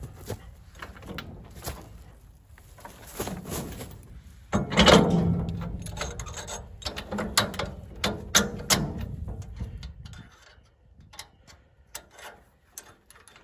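Metal clanks, knocks and clicks as a trailer's tongue coupler is set onto the hitch ball of a clamp-on loader bucket hitch and its latch worked by hand. The heaviest clunks come about four and a half seconds in and run for several seconds, followed by lighter clicks.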